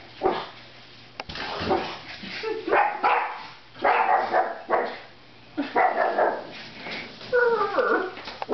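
Small dogs barking in sharp, loud yaps about once a second, alarm barking at a large stuffed animal pushed at them; near the end a higher, wavering yelp.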